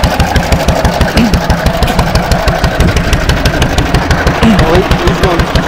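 Antique gasoline engine running steadily, firing in a fast, even beat.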